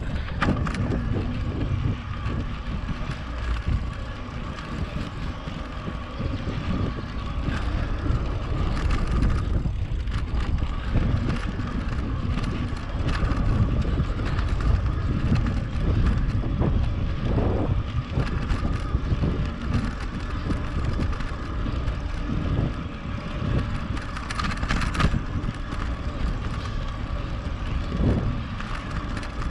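Riding noise from an electric mountain bike in motion: wind rumbling on the microphone and tyres on the trail, with a faint steady whine throughout.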